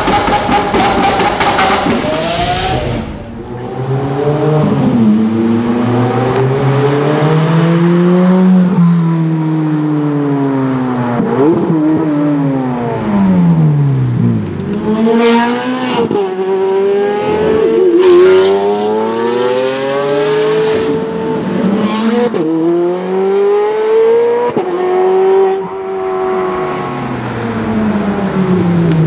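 Ferrari 430 Scuderia's V8 being driven hard: the engine note climbs and drops again and again as it revs up through the gears and falls back. A rapid burst of crackles comes right at the start.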